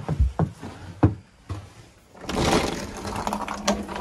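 A few heavy footsteps, then a wooden side door is opened by its knob about two seconds in. A rush of scraping noise settles into a lower, drawn-out scrape and creak as the door swings.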